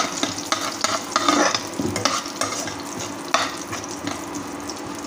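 Whole spices and dried red chillies sizzling in hot oil in a steel kadai while a metal spoon stirs them, scraping and clinking against the pan at irregular moments: the tempering (phoron) for moong dal.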